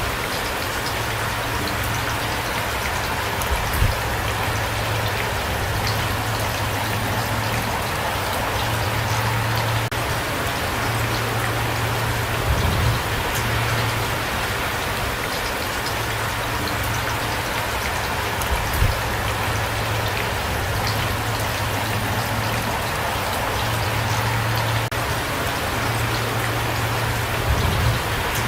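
Steady rain falling, with a few brief low thumps scattered through it.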